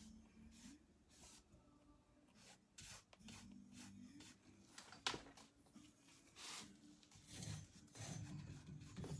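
A paintbrush rubbing paint on in faint, irregular strokes, with one sharper stroke about halfway through.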